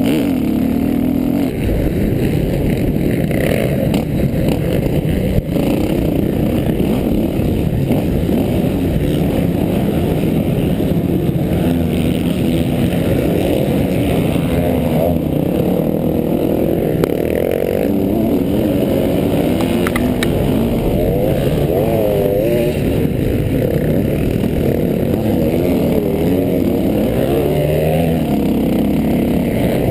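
Motocross dirt bike engine running hard, heard from a camera on the rider, its pitch rising and falling with the throttle, with other motocross bikes close by. A sharp knock about five seconds in.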